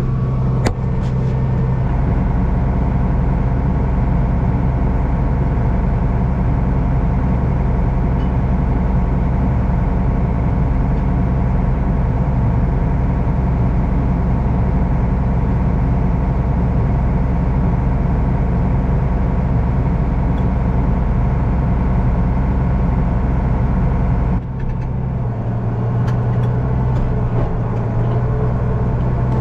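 Farm tractor engine running steadily with a low, even drone; its sound shifts and the lowest rumble drops about 24 seconds in.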